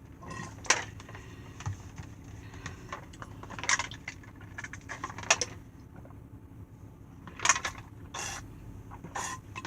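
Handling noise: about six short, irregular clicks and rattles, over a low steady hum.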